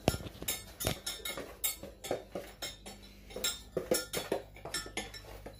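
A spoon clinking and scraping against a glass mixing bowl as a flour-based playdough mixture is stirred, in quick, irregular clicks.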